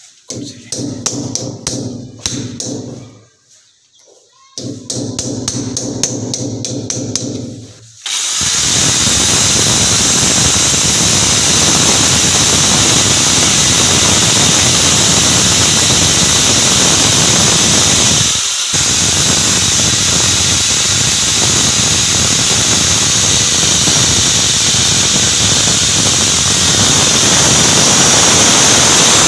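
A hammer tapping a screwdriver point against a glazed ceramic wall tile in quick series of taps, with a short pause, chipping a small dent so the drill bit will not slip on the tile. About eight seconds in, an electric drill starts boring into the tile and runs steadily, stopping for a moment about two-thirds of the way through before running on.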